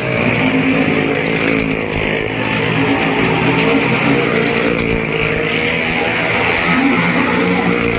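Motorcycle and small car engines running together as they circle the vertical wooden wall of a well of death, their pitch drifting up and down.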